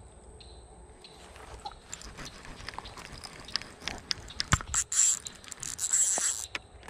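Fishing reel being cranked in, a run of small mechanical clicks and scrapes mixed with rustling handling noise as a hooked bass is brought to the bank, growing louder and busier over the last few seconds with several sharp knocks.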